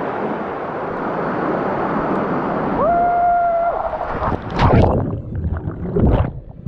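Steady rush of a waterfall, with a person's drawn-out whoop about three seconds in as he slides down the cascade. Loud splashing follows as he plunges into the pool, and the sound goes muffled as the microphone goes underwater near the end.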